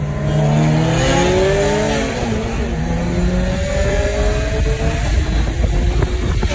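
BMW 335i's twin-turbo N54 straight-six at full throttle, heard from inside the cabin. The engine pitch climbs, drops at an upshift about two seconds in, then climbs again until about five seconds in, after which road and wind noise take over.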